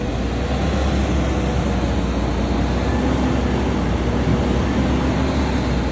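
Diesel engine of a forestry skidder running steadily at working revs, a dense, loud noise with a heavy low rumble.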